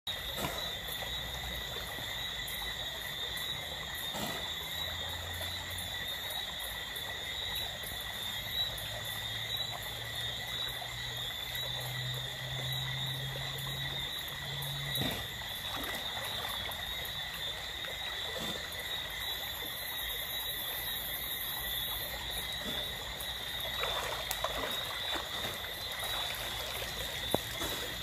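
Night chorus of frogs and insects: a steady high-pitched drone at two pitches holds throughout, with a few lower drawn-out croaking notes in the first half.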